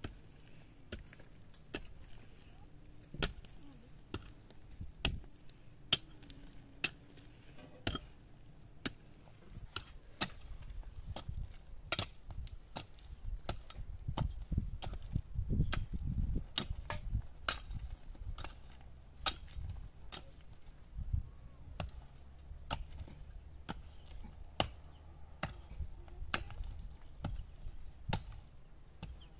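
Irregular sharp knocks and taps, roughly one or two a second, of hand work on stone and hard soil: stones or a hand tool striking stone while the edge of an earthen platform is built up. A low rumble runs under the knocks through the middle stretch.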